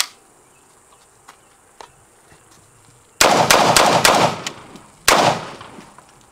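M16A2-clone rifle firing: a rapid string of shots a little after three seconds in, then another loud shot about two seconds later, each trailing off in echo.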